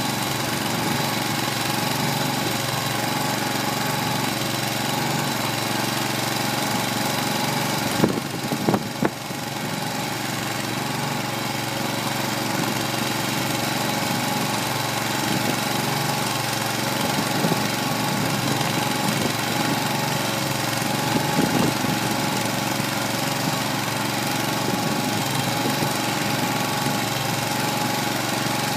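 Kohler 25 hp gasoline engine running steadily under load, driving a small 25-cubic-foot feed mixer that is tumbling chopped hay. A few short knocks stand out about eight to nine seconds in.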